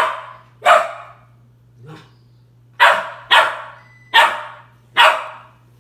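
Three-month-old Australian shepherd puppy barking at his own reflection: six sharp, loud barks, spaced irregularly, with a softer one about two seconds in.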